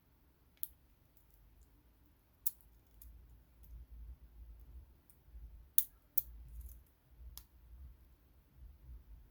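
Lock pick working the pins of a five-pin Newstar rim cylinder, held under a top-of-keyway tensioner: irregular light metallic clicks, a few sharper than the rest, over faint low handling rumble.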